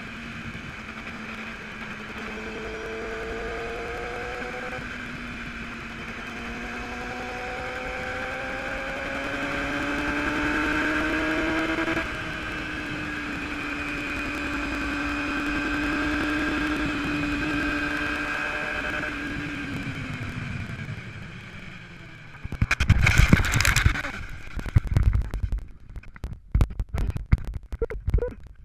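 Motorcycle engine accelerating through the gears, its pitch climbing and then dropping at each of two shifts, then easing off. Near the end comes a loud burst of rushing noise, then a run of sharp, irregular knocks and clatters.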